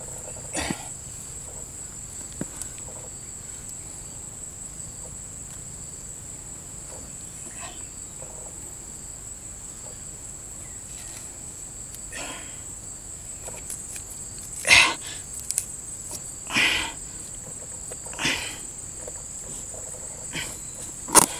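Steady high-pitched insect drone, like crickets, with short bursts of rustling and crackling as hands tear apart the rotten, fibrous coconut palm trunk; the bursts are louder and more frequent in the second half.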